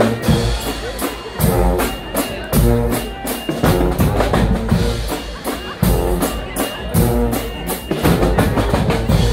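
Guggenmusik band playing live: brass blaring over heavy, driving drumming, with bass drums and snare on a strong beat.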